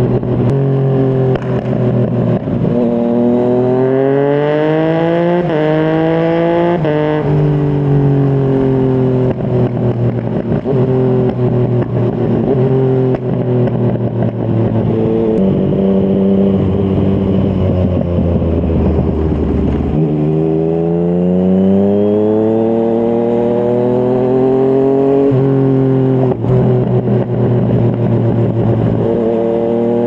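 Yamaha MT-09 three-cylinder engine through a Yoshimura R55 slip-on exhaust, heard from the rider's seat under way. Its pitch climbs as the bike accelerates and drops sharply at each upshift, about three times, with steadier cruising between.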